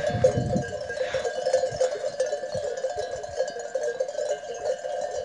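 Many sheep bells clanking continuously and unevenly as the flock moves and grazes, with a brief low rumble at the start.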